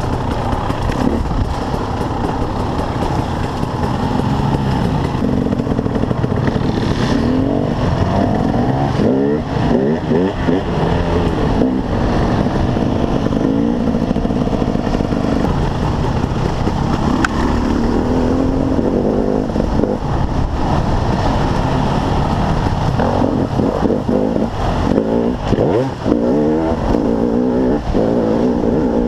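KTM 300 EXC enduro motorcycle's single-cylinder two-stroke engine under way, revving up and down repeatedly as the rider works the throttle, heard from the rider's helmet.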